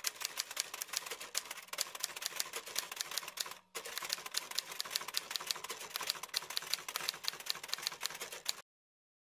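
Typewriter keystroke sound effect: a fast, even run of sharp key clicks, several a second. It pauses briefly about a third of the way in, then stops suddenly near the end.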